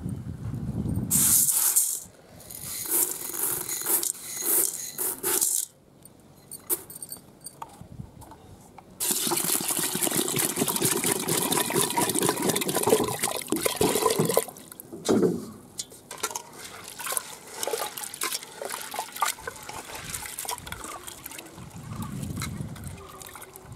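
Water poured from a can into a metal pot of split lentils, splashing over the grains, loudest and steadiest for about five seconds in the middle. A few short bursts of noise come in the first five seconds.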